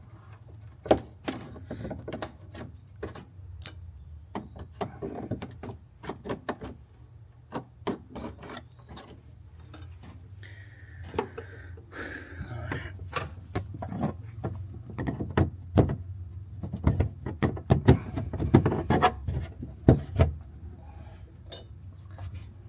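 Hands working loose plastic interior panels and parts on a side-by-side UTV: irregular sharp clicks, knocks and rubbing, busier in the second half, over a steady low hum.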